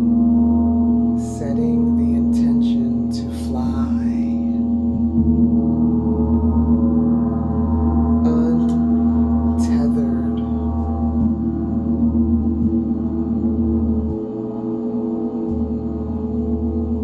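A gong sounding in a long, sustained shimmering wash of many steady overtones, with brief high accents in two clusters, one about a second in and another about eight seconds in.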